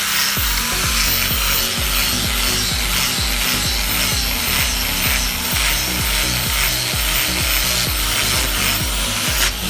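Handheld angle grinder running steadily with an abrasive disc, grinding rust and scale off a steel cross-peen hammer head: a high whine over a continuous rasping grind.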